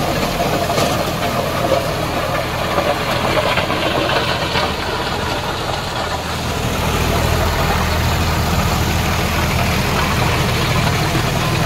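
Massey Ferguson 241 tractor's three-cylinder diesel running steadily under load, driving a 7-foot rotavator whose blades churn through dry soil. The engine note grows a little heavier about two-thirds of the way through.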